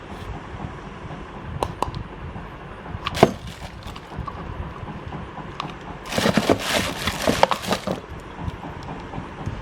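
CMC industrial ceiling fan running with a steady low hum. A few sharp clicks come in the first few seconds, and about six seconds in there are two seconds of crackling and knocking.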